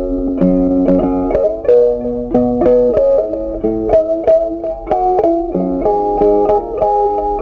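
Background music: a melody played on a plucked string instrument, the notes picked one after another, some sliding in pitch.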